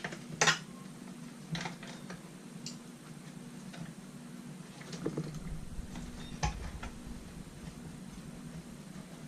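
Scattered clicks and light knocks of vacuum cleaner parts being handled and fitted as wires are tucked into the motor housing, the sharpest about half a second in and again near the middle, over a steady low hum.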